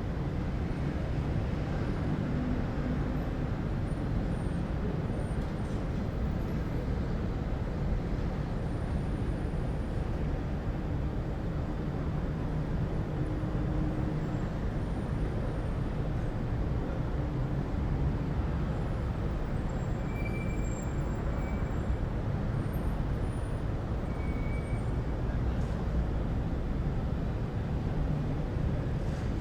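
City ambience: a steady low rumble of distant road traffic, with a few faint short high-pitched squeaks scattered through it.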